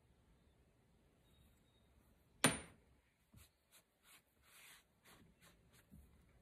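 A single sharp knock about two and a half seconds in, then a run of short rubbing strokes, a few a second, as a hand and sponge smooth the damp clay inside the bowl.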